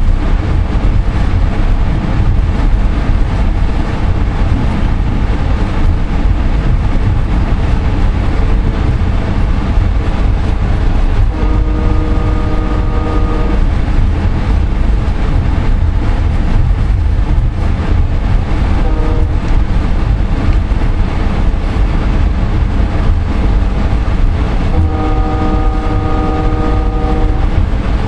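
Steady low rumble of a VIA Rail passenger train under way, heard from inside a coach. The EMD F40PH-2 locomotive's multi-chime horn sounds a long blast about a third of the way in, a short toot a little past halfway and another long blast near the end, a signal for a level crossing.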